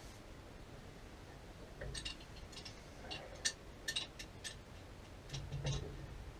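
Faint, irregular clinks and taps of tools and metal fittings being handled at the head of a bore pump, with a couple of dull knocks among them, starting about two seconds in.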